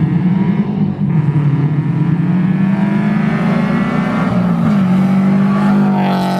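Subaru BRZ's flat-four engine, with unequal-length headers, a 3-inch front pipe and catback, accelerating hard toward and past, its exhaust note climbing steadily in pitch after a brief dip about a second in. Near the end the car passes close and the note drops suddenly in pitch and level as it goes by.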